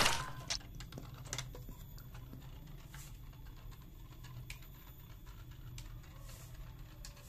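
A toy swimming turtle paddling itself through shallow water: faint, irregular ticking and pattering from its flippers and mechanism. There is a brief louder splash right at the start as it is let go in the water.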